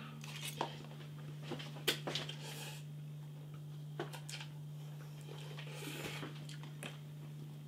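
Quiet room with a steady low hum, a few faint clicks and taps, and soft breathy hissing.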